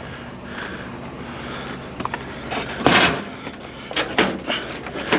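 Scrap being handled and loaded onto a truck: a few sharp knocks and clatters, the loudest about three seconds in, over a steady low hum.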